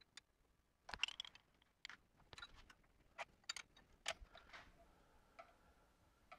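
Faint, scattered small metal clicks and taps of a lathe drive dog being handled and fitted onto an expanding mandrel.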